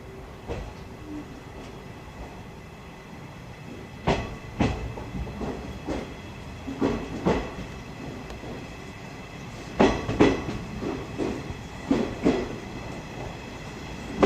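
Series 50 passenger coach rolling over rail joints, its wheels clacking in pairs every two to three seconds over a steady low rumble, heard from inside the coach.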